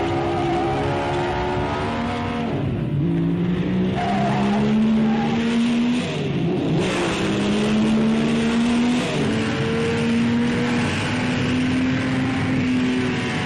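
1950s Maserati Grand Prix car's racing engine running hard on track, its note climbing slowly in pitch and dropping briefly a few times as it changes gear.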